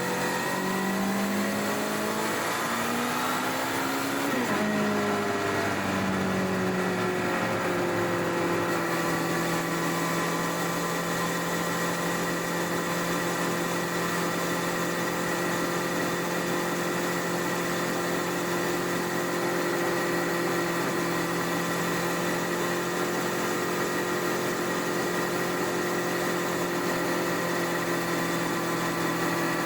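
Stock-exhaust 1999 Honda CBR1100XX Blackbird's inline-four engine under way. Its note climbs for about four seconds, drops sharply as if on a gear change or throttle closing, eases down over the next few seconds, then holds a steady cruising pitch.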